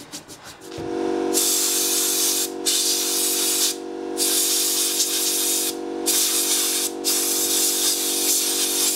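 Compressed air hissing from a hand-held air blow gun in long blasts, broken four times by short pauses where the trigger is let go, blowing off gasoline-washed fuel tank pickup parts. A steady hum starts just before the first blast and runs on under it.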